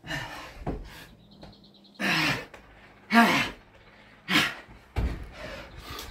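A man gasping and blowing out hard breaths, several in a few seconds, from exhaustion near the end of 100 Navy Seal burpees. The loudest breath, about three seconds in, carries a grunt. Dull thuds of his body landing on a wooden board come twice.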